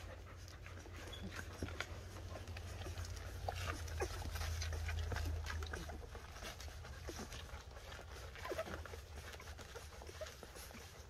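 Two-week-old golden retriever puppies nursing, with small squeaks and suckling clicks scattered throughout, while the golden retriever mother pants.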